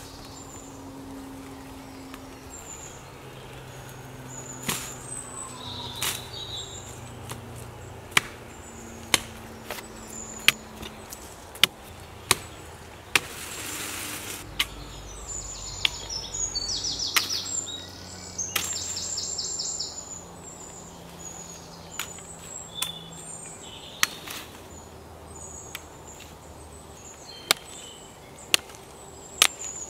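A blade chopping into thin branches: about a dozen sharp, irregular strikes, with rustling of foliage as a branch is handled in the middle. Small birds chirp throughout.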